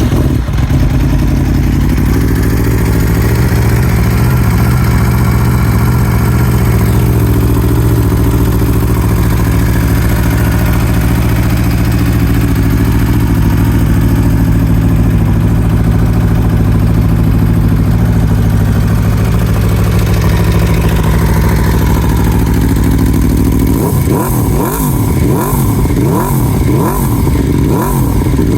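Aprilia Tuono V4 engine, fitted with an aftermarket HP Corse silencer, firing up and idling steadily. From about three quarters of the way through it is blipped repeatedly on the throttle, the revs rising and falling about once a second.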